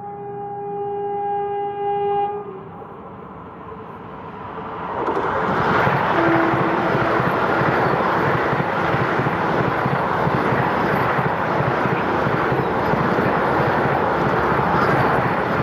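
Vande Bharat Express sounding its horn, a steady multi-tone blast that stops about two seconds in. Then the train passes at speed, about 130 km/h: a loud rush of air and wheel noise builds about five seconds in and holds, with a rapid clatter of wheels on the rails.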